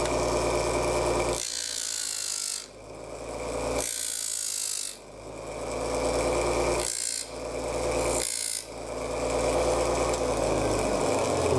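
Homemade mini disc sander running with a steady motor hum, with about four spells of sanding hiss as a small wooden shingle's corners are pressed against the disc to bevel them.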